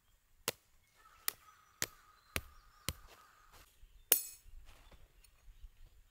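Club hammer driving a metal pin through a washer into weed-control sheeting: five strikes about half a second apart, then one louder blow with a bright metallic clink about four seconds in.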